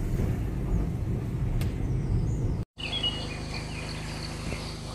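Car driving on a road, heard from inside the cabin as a low, steady rumble. About two and a half seconds in it cuts off abruptly and gives way to birds chirping outdoors.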